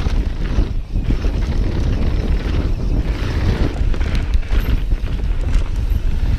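Wind buffeting the camera microphone on a mountain bike going fast downhill, a steady loud rumble, with tyres rolling over a dirt trail and short rattles and knocks from the bike over bumps.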